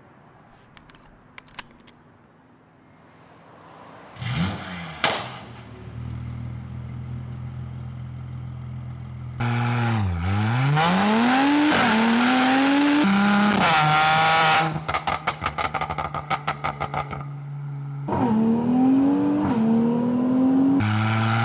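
Mercedes C43 engine started about four seconds in, flaring briefly before it settles to a steady idle. It is then revved several times, with a run of rapid crackles through the exhaust as the revs drop and two more quick blips near the end.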